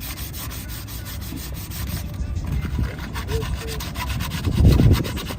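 Rust being scrubbed off a metal wheel hub assembly with an abrasive: a steady, rapid rasping rub, loudest for a moment a little before the end.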